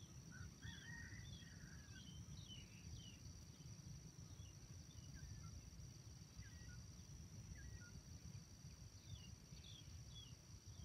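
Very faint outdoor ambience: a steady high insect drone, with small birds chirping faintly in the first few seconds and again near the end, over a low rumble.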